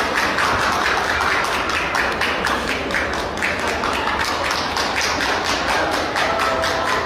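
Busy hall ambience: a steady hubbub of many people with dense, irregular tapping and clattering throughout.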